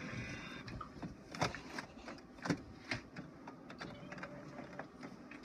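Inkjet all-in-one printer working: a steady motor whine fades out in the first moments, then its mechanism gives scattered clicks and clacks.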